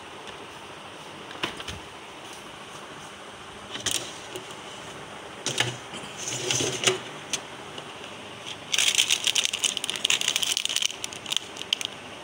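Food containers and dishes being handled in an open refrigerator: a few separate plastic clicks and knocks, then, about three-quarters of the way through, a dense clattering rattle lasting about two seconds.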